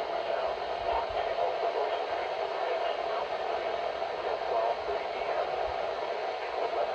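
Static-filled weather radio reception: a steady hiss pitched in the middle range, with no clear voice.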